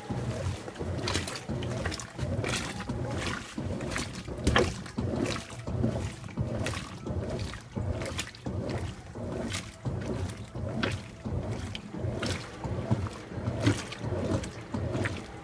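Washing machine agitating a wash load: water and clothes swish in rhythmic surges a little over once a second, over a steady low motor hum.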